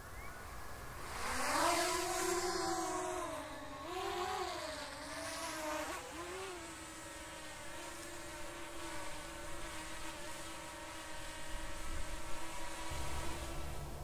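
An engine running, its pitch rising about a second in and wavering up and down for a few seconds, then holding steady.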